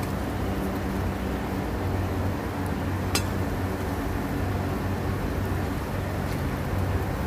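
A steady low machine hum with one sharp click about three seconds in.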